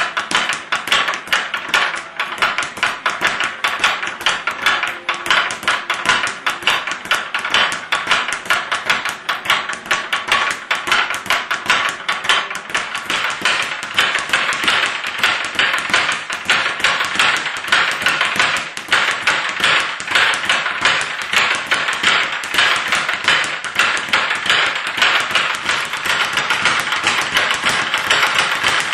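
A speed bag being punched continuously, the bag rebounding against its overhead platform in a fast, unbroken rattle of sharp knocks.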